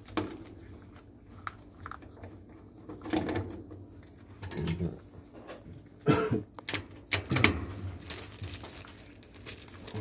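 Scattered clicks, taps and rustles of gloved hands and a small tool working on a gas furnace's burner assembly, with louder scrapes about six and seven and a half seconds in.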